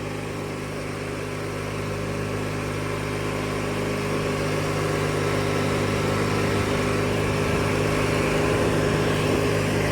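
Engine of a 1997 MTD Yard Machines riding lawnmower running at a steady speed, growing gradually louder.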